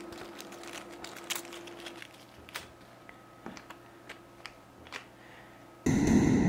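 Small plastic zip bag of crimp connector housings being handled: soft crinkling with a few faint clicks and ticks. Near the end a sudden loud noise sets in and slowly fades.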